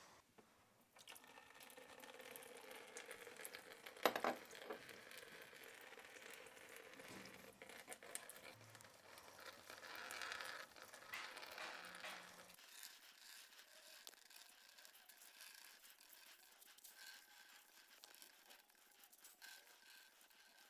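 Faint wet squelching and rustling as crushed white grapes are poured into a cloth-lined colander and the cloth is twisted and squeezed to press the juice out, with a brief knock about four seconds in. The sound grows fainter in the second half.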